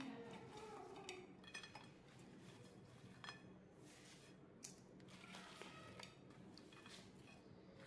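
Faint, scattered clinks and taps of French fries and fingers against ceramic plates as the fries are laid by hand onto a serving platter.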